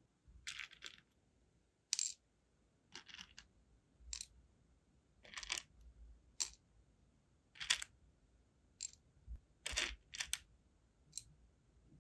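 Flower-shaped sealing wax beads being handled, clicking and clattering against each other and their container: about a dozen sharp clicks and short rattles, roughly a second apart.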